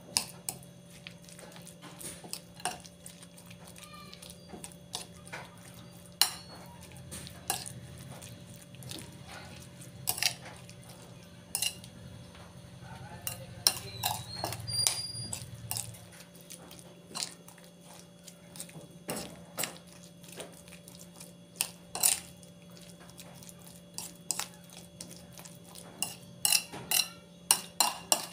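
Chicken lumpia filling being mixed by hand in a ceramic bowl, giving irregular clinks and knocks against the bowl, more of them near the end, over a steady low hum.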